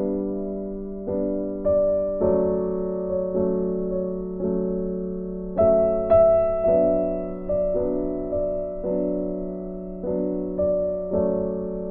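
Slow background piano music, each note struck and left to fade, a new one every half second to a second.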